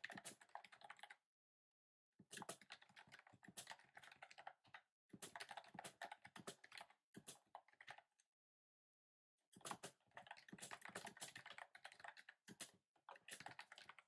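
Typing on a typewriter-style keyboard with round keycaps: quiet, rapid key clicks in runs of a few seconds each, broken by short pauses.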